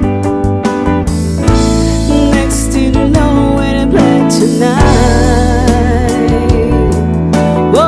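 Live band music: a slow romantic pop ballad with bass, guitar and drums, and a gliding lead melody line over it.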